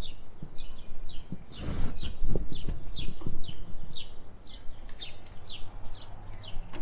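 A bird chirping over and over in short falling chirps, about two or three a second, over a low rumble with a few dull thumps.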